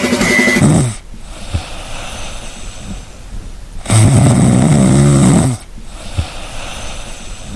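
A pet snoring: quiet breathing, then one long loud snore about four seconds in.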